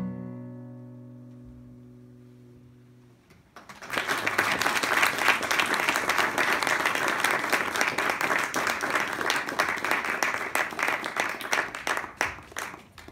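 The last acoustic guitar chord of a song rings out and fades over about three seconds. Then an audience applauds for about nine seconds and stops just before the end.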